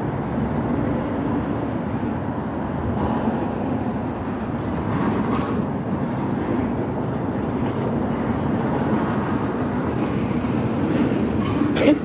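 Freight train tank cars rolling through a grade crossing, shoved from behind by an EMD switcher with the locomotive not leading: a steady rumble of wheels on rail. A sharp clank comes near the end.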